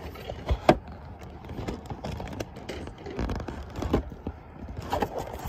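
Handling noise: irregular knocks, scrapes and rustles as a cardboard paint-by-number kit box is handled close up, with one sharp knock under a second in.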